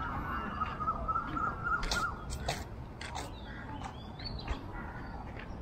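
Several birds calling: a wavering, warbling trill for about the first two seconds, then a run of short, sharp calls and high chirps.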